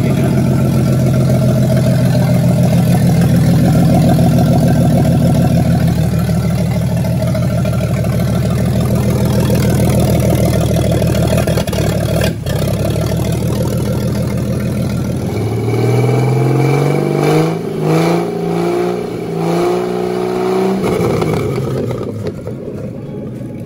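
Freshly overhauled Ford 200 inline-six industrial engine running steadily on an engine stand on its first run after the rebuild. It stops about fifteen seconds in, and music takes over for the rest.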